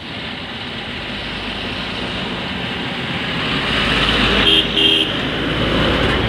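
Highway traffic noise from a loaded truck and a car passing close, growing louder as they near. Two short horn toots come about four and a half seconds in.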